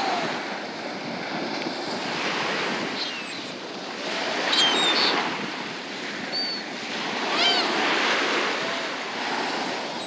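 Surf washing onto a sandy beach, swelling twice as waves break, with short calls from gulls now and then.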